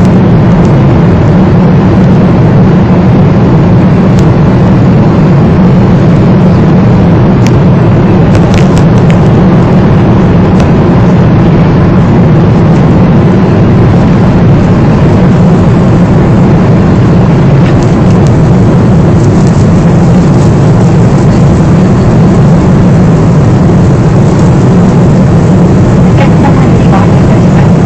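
Loud, steady drone of a jet airliner's cabin in flight, engine and airflow noise, while the plane flies through heavy turbulence. A few faint clicks or rattles sound about a third of the way in and again near the end.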